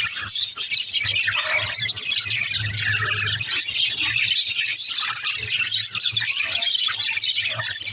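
Budgerigars chattering: a dense, continuous stream of quick overlapping chirps and warbles.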